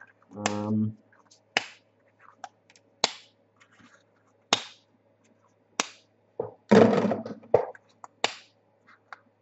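Single sharp clicks, roughly one every second and a half, like clicks on a computer, with a brief murmur of voice about half a second in and again around seven seconds.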